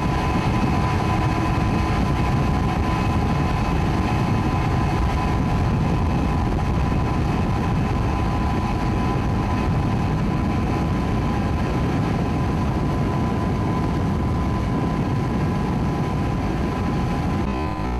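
Outboard motor of a boat running at high speed, a steady high whine over the heavy rush of wind and water heard from aboard the moving boat.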